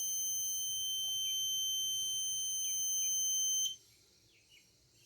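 Electronic buzzer of an Arduino automatic school bell sounding one steady, high-pitched alarm tone for a timed bell, cutting off abruptly about three and a half seconds in.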